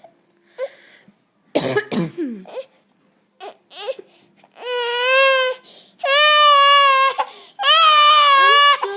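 An adult coughs about a second and a half in, and a baby of almost nine months, frightened by the cough, starts to cry: a few short whimpers, then three long wails.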